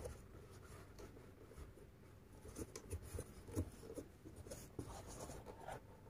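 Faint, irregular scratching and rustling of a crochet hook drawing thick, twisted macramé cord through stitches as single crochet is worked into the back loops.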